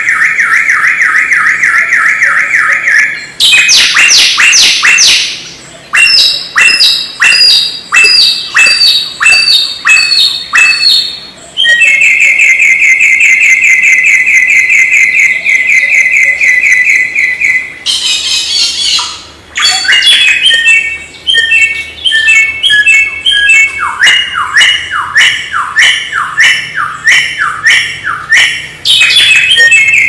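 Samyong songbird singing loudly in varied phrases. Fast rolling trills alternate with runs of sharp, downward-sweeping whistled notes at about two a second, with brief pauses between phrases.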